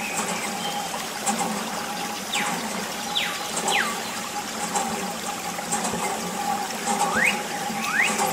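Water trickling from a thin tube fed by a mini water pump, over the pump's steady hum. A few short whistling glides sound over it: three falling in pitch in the middle, two rising near the end.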